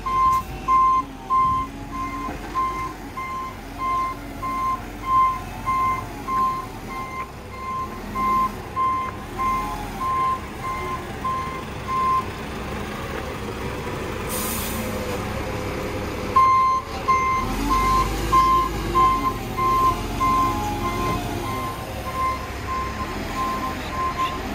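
Volvo garbage truck reversing: its reversing alarm beeps about twice a second over the running diesel engine. The beeps stop about halfway, there is a short hiss of air from the brakes, and then the beeping starts again.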